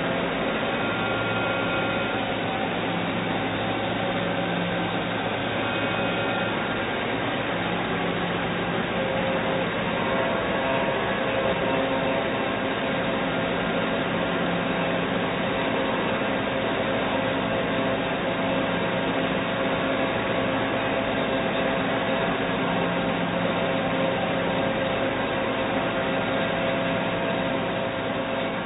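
Doosan Puma MX1600ST CNC mill-turn lathe running through a machining cycle on a long shaft: a steady mechanical whir with several held tones that come and go in stretches, fading out near the end.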